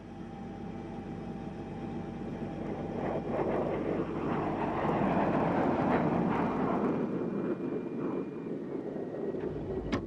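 Aircraft engine noise, a steady rushing sound with faint steady tones, growing louder over the first five seconds or so and then easing a little.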